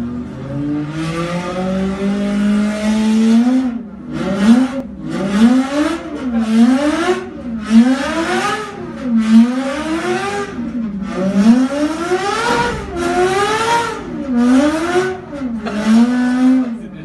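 Oreste Berta V8 racing engine on an engine dynamometer. Its revs climb slowly for the first few seconds, then it is blipped up and down about a dozen times, roughly once a second, before settling back to a steady speed near the end. It is heard from the control room through the test-cell window.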